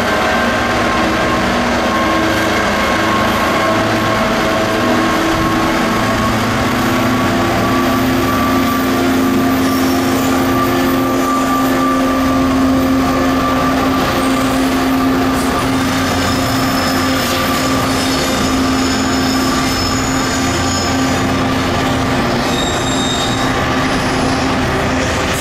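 Class 66 diesel locomotive's two-stroke V12 engine running under power as it hauls a container freight train past, its engine note rising slightly. From about halfway, high-pitched wheel squeal comes from the wagons as they roll by.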